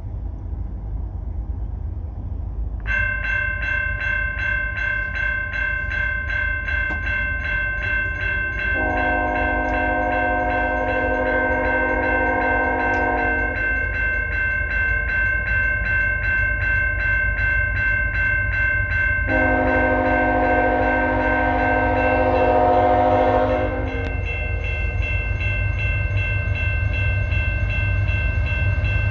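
Grade-crossing signal bell starts ringing about three seconds in, a rapid steady ding. An approaching CN freight train's locomotive horn sounds two long chord blasts, the first about nine seconds in and the second about nineteen seconds in, the usual crossing warning, over a steady low rumble.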